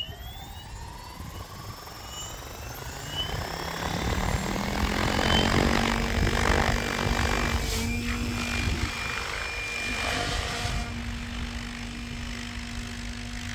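Specter V2 NME 700-size electric RC helicopter spooling up: a whine rising in pitch for the first few seconds, then holding a steady pitch, with rushing rotor noise that grows louder about four seconds in.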